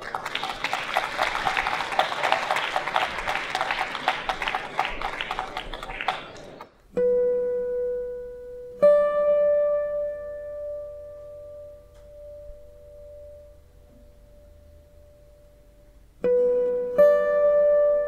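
An audience applauding for about six seconds, stopping abruptly. Then slow guitar music follows: single plucked notes, a few seconds apart, each left to ring.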